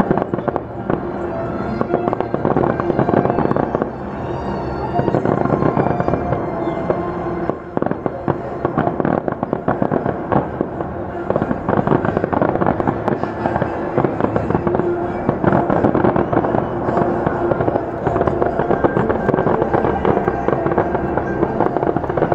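Fireworks crackling and popping in dense, irregular volleys, with music playing underneath.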